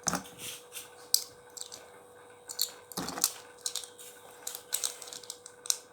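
Irregular small clicks and taps of hands handling a toy spinning top, with a louder knock near the start and another about three seconds in.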